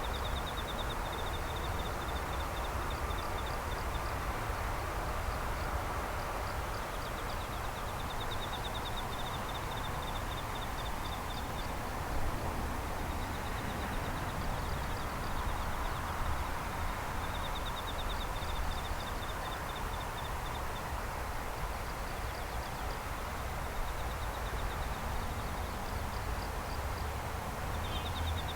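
Outdoor night ambience: insects trilling high and fast in repeated short bursts, over a steady low rumble.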